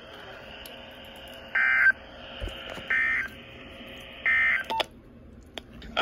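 NOAA Weather Radio end-of-message SAME data tones through a Motorola handheld radio's speaker: three short, identical buzzy bursts about a second and a half apart over faint radio hiss. They mark the end of the Emergency Alert System warning message.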